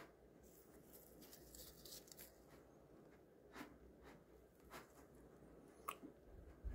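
Near silence, with faint rustling and a few light ticks from a vinyl-gloved hand handling a pistol slide.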